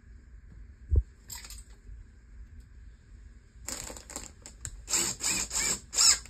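A single thump about a second in, then a cordless drill driving a screw at an angle through a wooden stud into the rafter (toe-screwing), in several short runs of the motor that grow louder toward the end.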